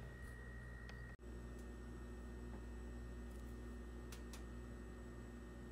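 Faint room tone with a low steady hum, briefly cutting out about a second in, and a couple of faint clicks around four seconds in.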